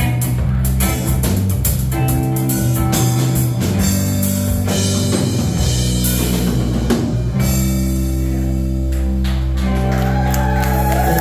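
Live rock band playing: electric guitar, electric bass and drum kit. The drumming thins out in the second half while held chords ring on.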